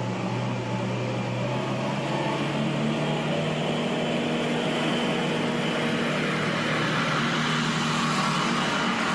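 Road roller's engine running steadily, its low note stepping up slightly about two seconds in.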